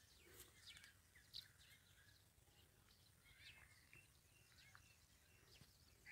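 Faint, scattered chirps from small birds over near silence.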